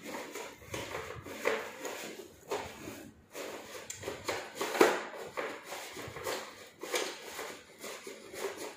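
Printed banner sheet rustling and being handled as it is rolled slowly into a roll-up banner stand's cassette base, with irregular light knocks and scrapes; the loudest knock comes about five seconds in.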